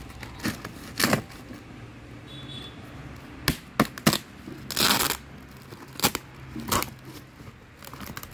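Packing tape and corrugated cardboard being ripped off a sealed shipping carton: a string of about eight short tearing rips, with a longer rip about five seconds in.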